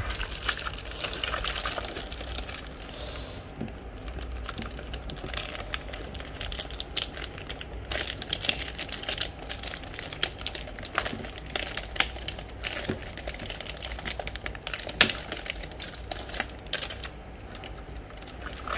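A SteelSeries Apex 7 TKL mechanical keyboard being unwrapped from its packaging and handled: a run of irregular small clicks and taps, with plastic rustling in the first few seconds.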